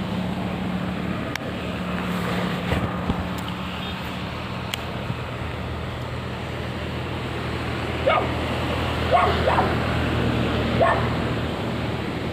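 A dog barking about four times in the second half, short sharp barks, over a steady hiss of wind and a low steady hum.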